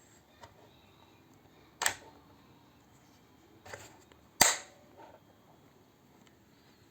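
Three sharp snaps or clicks from handling the keyboard and its packaging, the loudest about four and a half seconds in.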